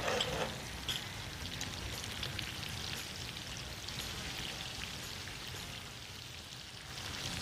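Chicken pieces frying in hot oil in a wok, a steady crackling sizzle, with a couple of light clicks in the first second.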